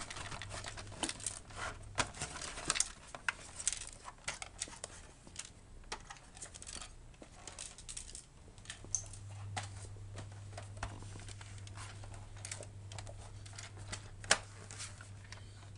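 Irregular small clicks and taps of a PS4 console's plastic casing and parts being handled, turned over and unscrewed, over a faint steady low hum that grows a little stronger about halfway through.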